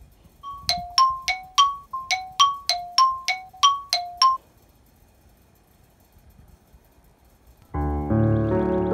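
A comic sound effect of short, bright plinking notes alternating between two pitches, about three a second for some three and a half seconds, then a lull. Piano music starts near the end.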